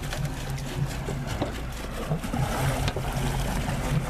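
An engine running steadily at idle, a low even hum, with a few faint knocks and clicks over it.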